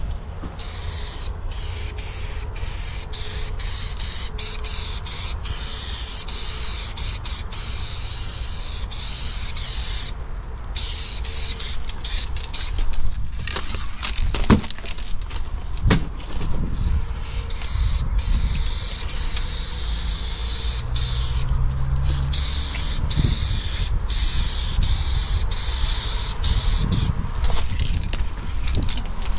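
Aerosol spray-paint can hissing in long bursts, cut by many short breaks, as the fill colour of a graffiti piece is sprayed in.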